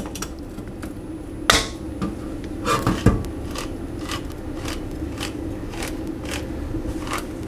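A handheld crank can opener clamps onto the rim of a can with a sharp click. It is then cranked around the lid, cutting it with a regular click about twice a second.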